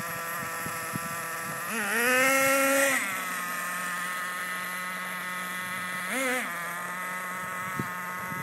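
A small engine idles with a steady buzz and is revved twice: a rise of over a second early on, then a short blip about six seconds in.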